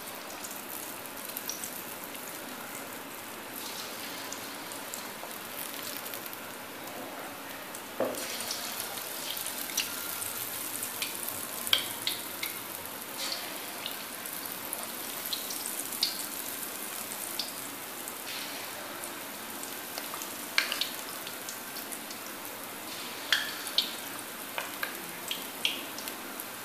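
Besan pakora batter frying in hot ghee in a karahi: a steady sizzle with scattered sharp pops and crackles. The sizzle gets louder about eight seconds in, as more batter goes into the fat.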